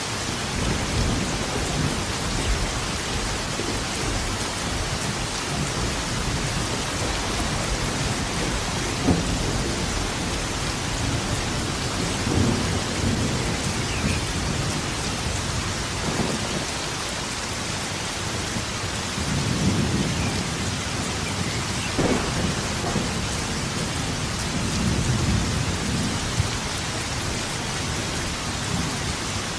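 Steady heavy rain with rolling thunder: several low rumbles swell and fade, and a sharper thunderclap cracks about two-thirds of the way through.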